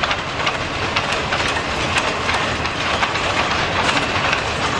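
Freight train's log-loaded bulkhead flatcars rolling past: steady wheel-on-rail noise with a quick, uneven run of clicks and clanks as the wheels cross rail joints.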